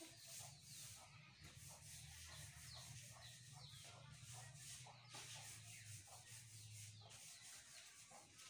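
Near silence: a low hum with faint, irregular scratchy rubbing strokes.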